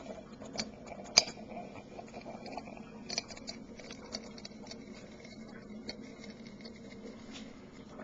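Oxyhydrogen (HHO) torch flame burning into an aluminium drink can, giving irregular crackles and small pops over a low steady hum, with one sharp pop about a second in.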